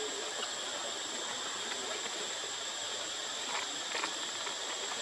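Steady high-pitched insect drone, an even buzz that holds without change, with a couple of faint ticks about three and a half seconds in.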